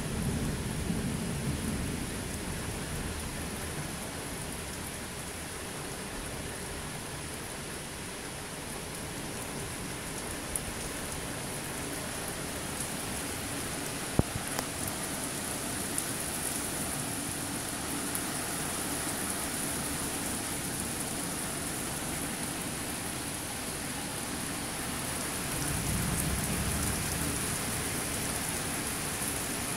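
Steady heavy thunderstorm rain falling on trees and ground, with low rumbles at the start and again near the end. A few sharp ticks of drops striking, the loudest about halfway through.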